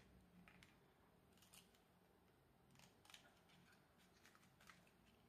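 Faint, short clicks and scrapes of cards being slid into and handled in a red Ridge metal card wallet, coming in small clusters.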